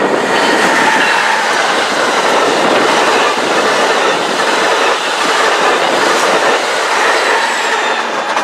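Amtrak passenger train led by a Siemens Charger diesel locomotive passing at speed: wheels clattering over the rail joints and the rush of the coaches going by, ending as the last car clears near the end.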